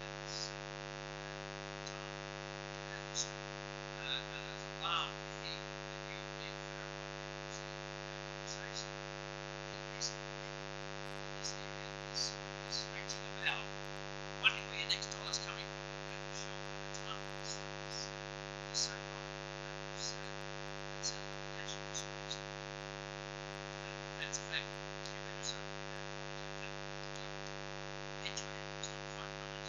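Steady electrical mains hum with many even overtones, with faint short clicks and chirps scattered over it.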